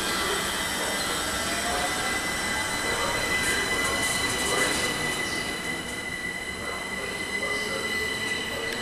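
c2c Class 357 Electrostar electric multiple unit moving through the platform, giving a steady rumble with several high-pitched steady tones above it. There is a run of light clicks around the middle.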